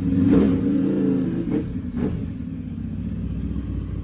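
Ducati Monster 696's air-cooled L-twin engine idling steadily.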